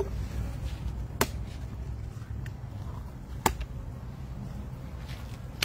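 Two sharp knocks about two seconds apart from a knife chopping through fish on a wooden cutting board, over a low steady rumble.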